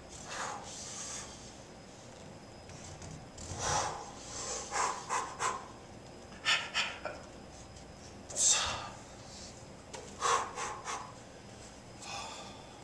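A man breathing hard under the strain of handstand pushups: short, forceful exhales and bursts of panting every second or two, the loudest about two thirds of the way through.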